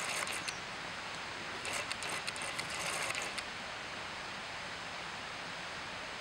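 Daisen Falls rushing steadily. Over it come two short runs of rapid clicking and rattling, one at the very start and one from under two seconds in to about halfway.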